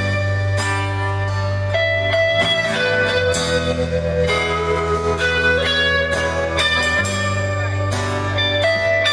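Live rock band playing an instrumental passage without vocals: guitars over a steady bass line and drums, heard through the venue's PA from the audience.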